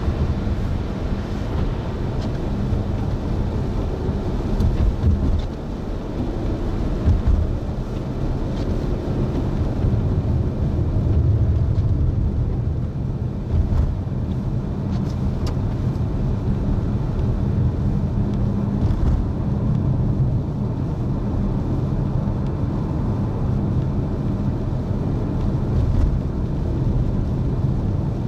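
A car running, with a steady low rumble of engine and road noise and a few brief louder thumps.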